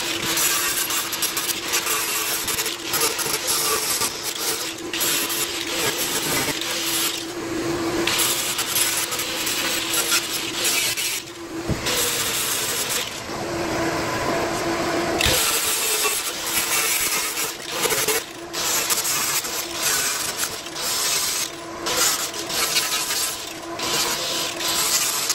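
Power sander running and grinding into a boat's fibreglass, cutting shallow recesses around holes so they can be patched from one side. A steady motor hum runs under an uneven rasping that shifts as the sander is pressed and moved, with a brief dip about eleven seconds in.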